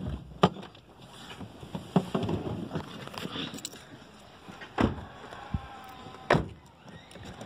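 Knocks and thumps of a person climbing out of a car with the phone in hand: a few sharp knocks and handling bumps over a low rushing background, the two loudest about five and six seconds in.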